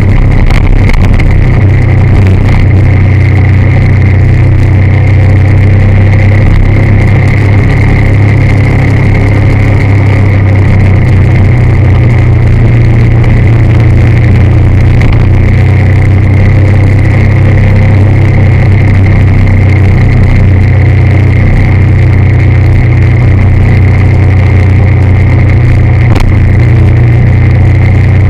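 Vehicle engine running at a steady cruise with road and wind noise, a loud, even drone with a low hum and a faint higher whine that hardly changes.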